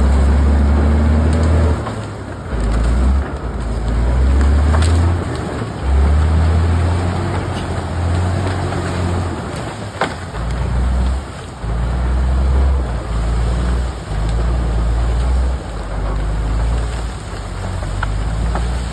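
Heavy-equipment engine running, under a loud, uneven low rumble that swells and drops every second or two, with a single sharp click about halfway through.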